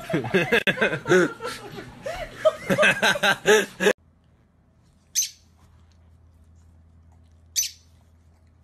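A boy laughing in quick bursts, which stops abruptly about four seconds in. Then a rosy-faced lovebird gives two short, high chirps about two and a half seconds apart over a faint low hum.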